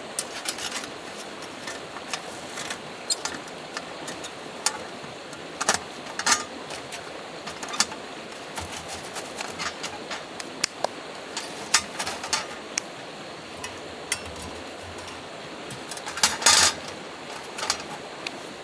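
Steel panels of a Yoler folding wood stove clinking and knocking as they are slotted together, a run of irregular metallic clicks with a louder clatter about 16 seconds in.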